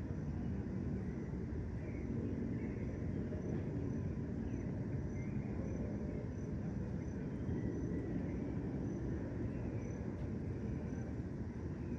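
Evening park ambience: a steady low rumble of distant city traffic, with scattered short bird chirps and a cricket's high chirp repeating evenly about one and a half times a second.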